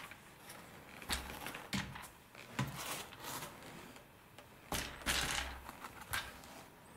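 A few light knocks and scrapes as the carbon tail boom and fuselage of a model sailplane are handled and set down on a carpeted workbench.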